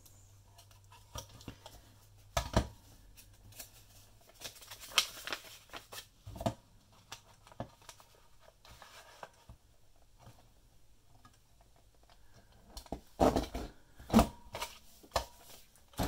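Large 6.35 cm lever-style craft paper punch pressed down on envelope paper several times: sharp plastic clunks with paper rustling and scraping between them. The punch is dull and is not cutting through the paper cleanly.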